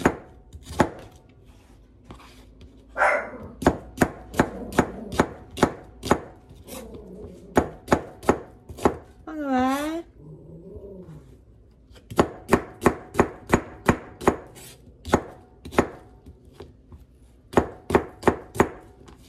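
Chef's knife slicing onions on a cutting board: runs of sharp chops about three a second, with a pause of a couple of seconds near the middle. Just before that pause a dog barks once, a brief wavering yelp.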